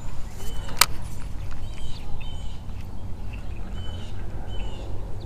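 A bird calling with short, repeated chirps over a steady low rumble, with one sharp click just under a second in.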